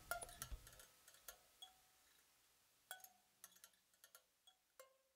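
Faint, scattered ticks and short tinkling pings at irregular spacing, thinning out toward the end: the last sparse percussion of the song dying away.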